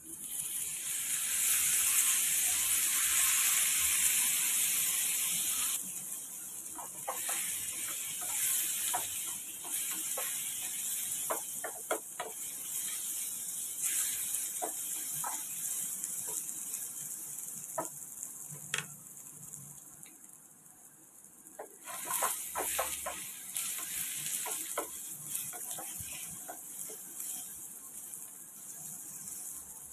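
Sliced bitter gourd sizzling in hot oil in a pan, loudest for the first few seconds, while a wooden spatula scrapes and taps the pan as it is stirred. A second short burst of sizzling comes about two-thirds of the way through.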